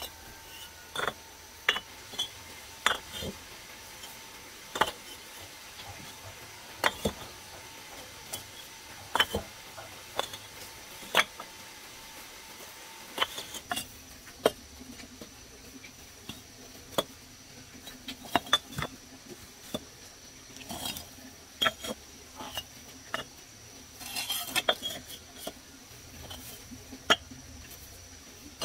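Hollow fired clay bricks clinking and knocking against each other as they are handled and set down one by one, sharp knocks with a short ring about every second, with a brief clatter of several together near the end.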